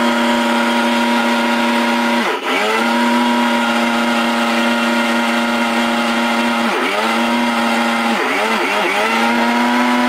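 Prestige mixer grinder's motor running at high speed while its small stainless-steel jar grinds rice into powder, giving a steady, loud hum. The pitch dips and picks up again about two seconds in, near seven seconds, and twice around eight seconds, as the pulse button is let go and pressed again.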